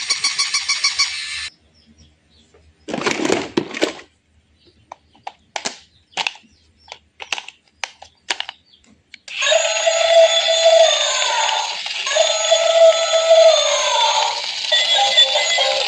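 Battery-operated electronic toy sounds: a rapid high electronic beeping, about eight beeps a second, that stops about a second and a half in. A short noisy burst and a scatter of sharp clicks follow, then from about nine seconds an electronic toy melody plays.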